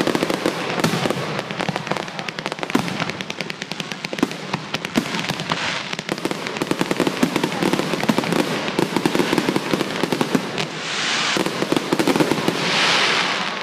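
Aerial fireworks display: a rapid, overlapping barrage of shell bursts and crackles, many bangs a second, with two swells of rushing hiss near the end.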